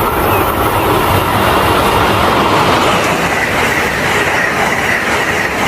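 Train running along the track, a steady, loud noise of wheels on rails.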